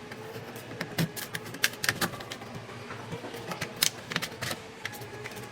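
Irregular light clicks and taps of small hand tools and parts being handled while a phone is worked on, several a second with uneven spacing.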